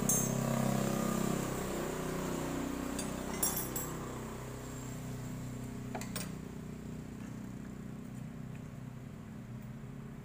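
A steady low hum, strongest in the first couple of seconds, under two light metallic clicks about three and a half and six seconds in, as a wrench and a holding bar are set on the bolt of a motorcycle's camshaft timing sprocket.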